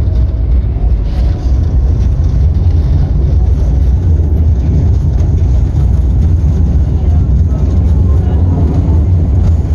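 Bucharest standard tram running along its track: a loud, steady low rumble of wheels on rails and running gear.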